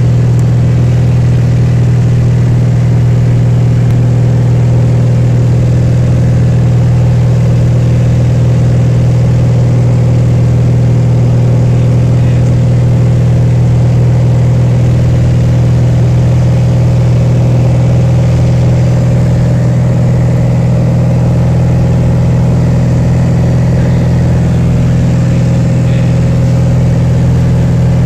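Beechcraft light aircraft's piston engine and propeller running steadily at an even pitch, heard from inside the cockpit on approach to land.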